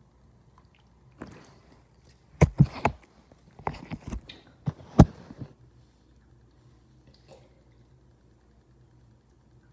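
Handling noise from a phone being picked up and moved: a burst of sharp knocks, clicks and rubbing that starts about a second in and lasts about four seconds, with the loudest knocks around the middle.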